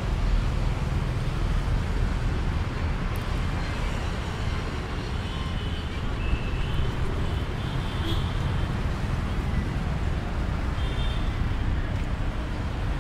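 Steady road traffic noise: a continuous low rumble, with a few faint short high tones here and there.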